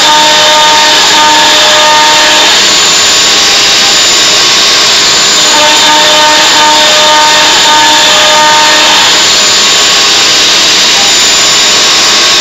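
Router spindle of a homemade CNC machine running at speed and cutting into wood: a loud, steady noise with faint tones that come and go as the machine moves.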